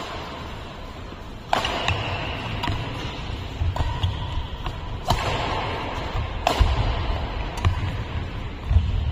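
Badminton rally: rackets striking the shuttlecock in a string of sharp hits about every second or so, starting about a second and a half in, with players' footfalls and shoe squeaks on the court mat between them, echoing in a large hall.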